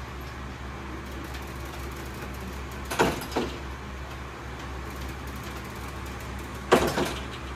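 Hinged metal-framed tile display panels on a swing-panel rack being turned over, giving two sharp double knocks, about three seconds in and again near the end, over a steady low hum.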